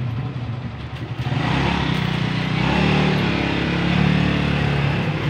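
A motorcycle engine running close by, growing much louder about a second in and staying loud, its pitch rising and falling slightly.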